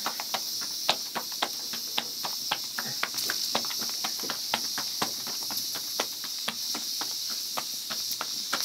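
Flatbread dough being slapped back and forth between the palms to stretch it: a quick, irregular run of pats over a steady high hiss.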